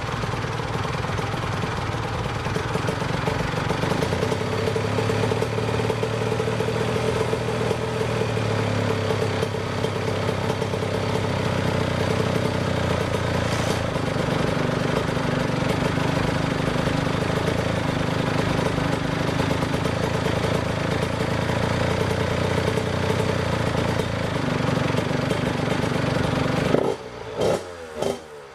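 Honda CR85RB's 85cc two-stroke single-cylinder engine running steadily on its stock exhaust while the idle is set, then blipped through a few quick revs near the end.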